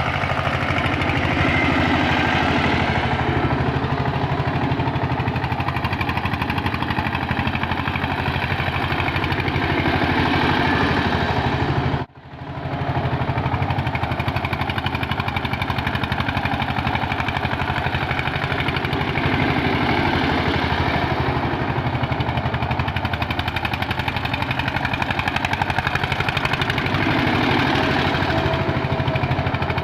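Eicher 242 tractor's diesel engine running steadily as the tractor drives over loose sand, with a brief break in the sound about twelve seconds in.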